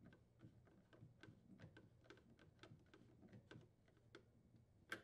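Faint, irregular clicking of a nut driver threading a screw into the plastic evaporator fan housing, several small ticks a second, with one sharper click near the end.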